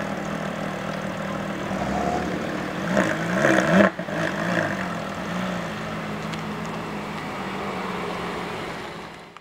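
Sports car engines running in slow traffic, with several quick rises and falls in revs from about three to four and a half seconds in, the loudest part. The sound fades out at the end.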